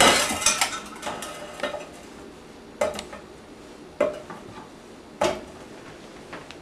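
Knife cutting strawberries on a cutting board: a clatter at the start, then single sharp knocks of the blade on the board about once a second.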